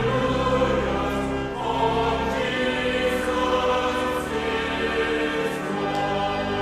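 Choir singing a hymn in held, sustained notes over a low accompaniment.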